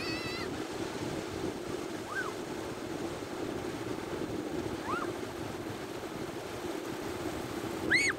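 Surf breaking and washing up a flat sandy beach, a steady rush. Over it come three brief high shouts from children, the loudest near the end.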